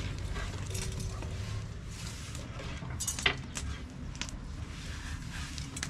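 Scattered light taps and clinks of kitchen utensils during dough work, with one sharper click about three seconds in.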